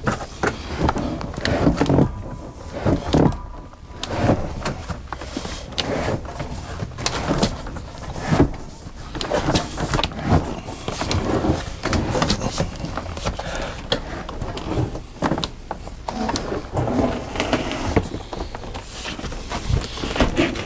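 Norcold 1200 RV refrigerator being worked out of its wall cabinet: irregular scraping, creaking and knocking as the fridge is rocked and slid against the cabinet opening and the wooden boards laid on the floor.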